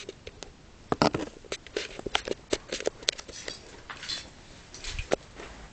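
Lego plastic parts clicking and rattling as a Lego pistol is handled and worked: a string of irregular sharp clicks, a cluster of the loudest about a second in.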